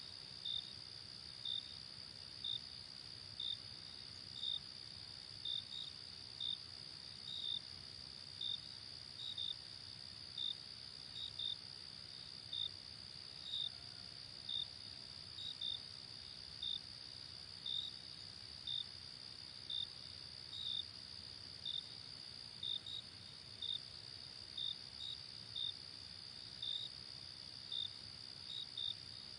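Insects chirping: a steady high trill, with separate short chirps about once a second, some of them in pairs.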